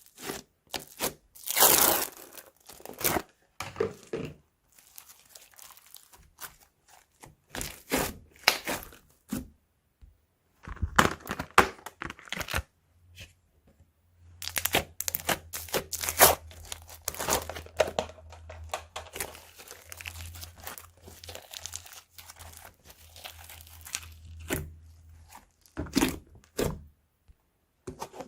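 Crunchy slime being kneaded and stretched by hand, giving irregular bursts of crunching crackles separated by short pauses.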